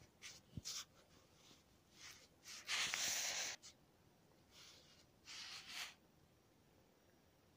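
A person breathing close to the microphone: several short breathy hisses, the longest and loudest lasting about a second about three seconds in.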